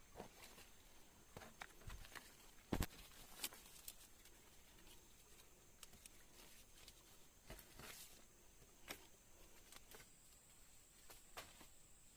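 Faint night-forest ambience: a steady high insect drone with scattered soft ticks and taps, the sharpest about three seconds in.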